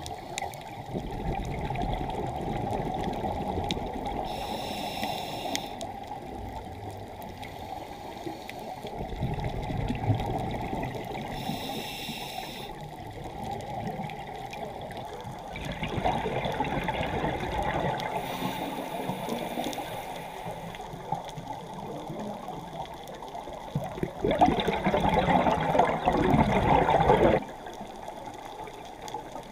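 Scuba breathing heard underwater: a regulator hissing and exhaled bubbles rushing in a slow cycle of several seconds. The loudest burst of bubbling comes near the end and cuts off suddenly.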